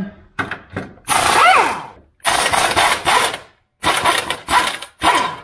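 Pneumatic impact wrench running in four bursts of about a second each, its motor pitch rising and falling on the first, undoing the 17 mm transmission bolts.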